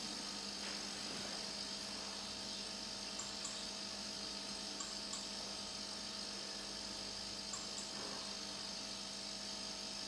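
Steady electrical hum with a constant low tone and a faint hiss. Faint clicks come in pairs, three times.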